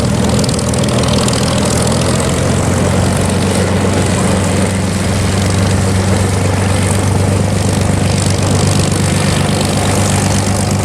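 V12 piston engine and propeller of a World War II fighter taxiing, running steadily at low power.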